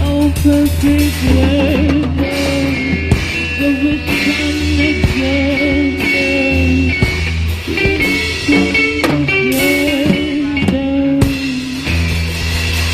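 Psychedelic rock music: guitar and drums over a sustained low drone, with a wavering melodic line that may be singing.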